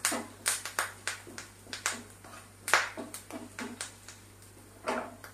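Tempering of mustard seeds, dried red chillies, shallots and curry leaves frying in coconut oil in a nonstick pan as it is stirred: irregular sharp crackles and clicks, several a second, thinning out near the end.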